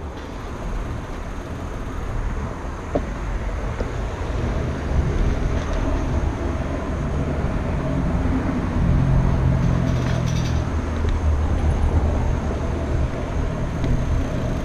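Road traffic noise with a steady low rumble, heard from a moving bicycle.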